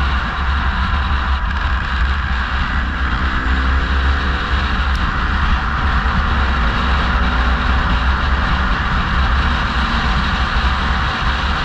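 Car driving: steady engine and road noise heard from inside the car, with a deep rumble under a broad hiss. The engine note rises slightly a few seconds in.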